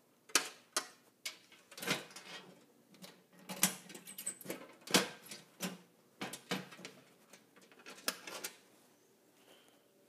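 Red metal fire alarm control panel cabinet door being swung shut and latched: a string of clunks, clicks and rattles over about eight seconds, loudest about five seconds in.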